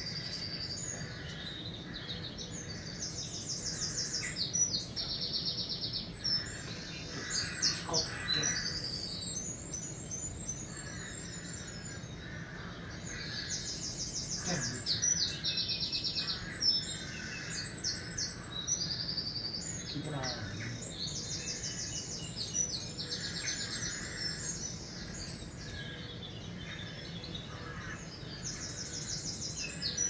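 Birdsong played on a television's speakers from a bird video: birds singing in repeated short, rapid high trills and chirps.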